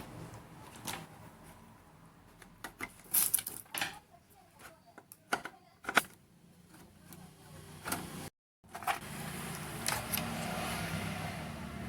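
Scattered light clicks and knocks of a TV's power supply board being unscrewed and lifted out of the set by hand. A steady low hum follows after a short break.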